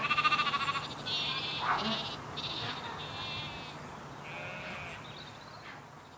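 Sheep bleating: a run of about six or seven short, quavering bleats, fading towards the end.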